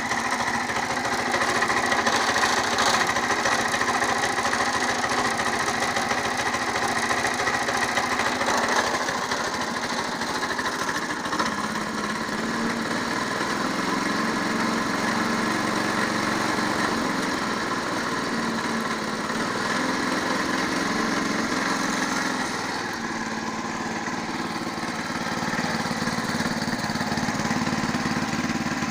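Walk-behind tractor engine running steadily with a knock that the owner calls suspicious. Its sound changes about nine seconds in, with less of the upper ring, and the lower note shifts a little later on.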